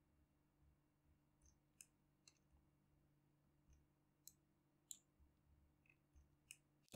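Faint computer mouse clicks, about half a dozen at irregular intervals, over a low steady hum.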